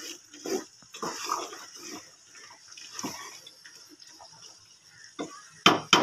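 Wooden spatula stirring and scraping bean seeds and spice paste in an aluminium pot as they fry, in irregular strokes, with two sharp knocks against the pot near the end.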